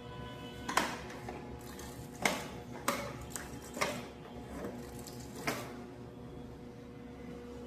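About five sharp clicks and knocks of hard parts of a water dispenser being handled, spread over the first five or six seconds, with steady background music.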